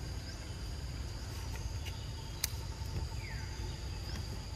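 Forest ambience: a steady high-pitched insect drone with short rising chirps now and then, over a low rumble. A single sharp click comes about halfway through, and a brief falling squeak a little after it.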